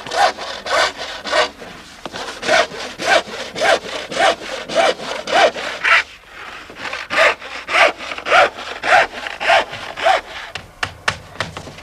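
Hand saw cutting through a wooden boat plank, steady back-and-forth strokes of about two a second, with a brief pause about six seconds in before the sawing resumes.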